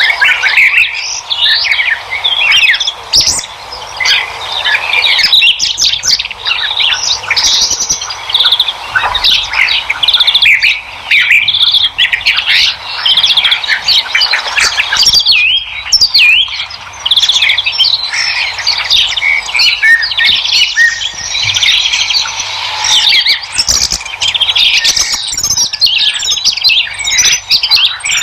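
A chorus of many birds chirping and singing at once, with short overlapping calls and trills and no pauses.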